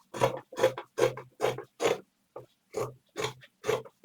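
Scissors cutting through fabric in a steady run of snips, about two to three a second.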